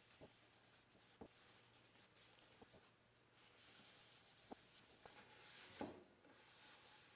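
Near silence: quiet room tone with a few faint light taps and a soft scratchy rustle about six seconds in.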